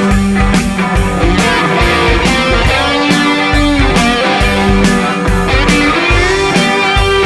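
Rock music with guitar and a steady drum beat of about two hits a second.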